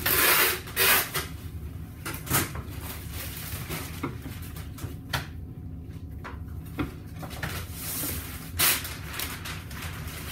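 A knife working through a bone-in ham: a string of short scraping and knocking sounds as meat is cut away from the bone, louder in the first second and again near the end, over a steady low hum.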